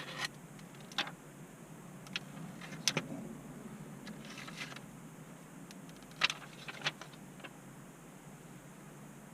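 Handling noise from a new iPhone XS and its plastic protective cover being taken off: scattered light clicks and taps, with a brief crinkly rustle about halfway through.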